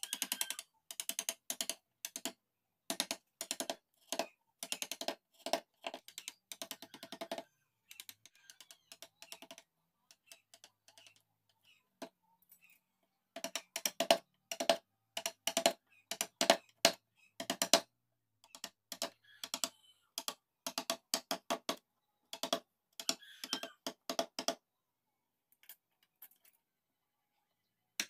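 Quick runs of sharp taps from a steel carving chisel being tapped into mahogany, several taps a second with short pauses between runs. The taps turn faint for a few seconds about a third of the way in, come loudest just after the middle, and thin out near the end.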